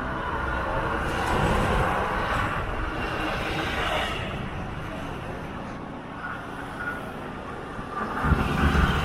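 Highway traffic passing: tyre and engine noise from trucks and cars that swells and eases off. Near the end a louder, deeper rumble comes in as a heavy truck draws close.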